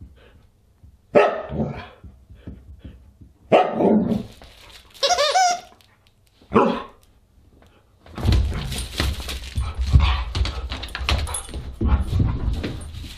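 Siberian husky giving short barks and yips, with a wavering whine about five seconds in. From about eight seconds on comes a continuous rough scuffling racket as the husky romps and thrashes about with its toys.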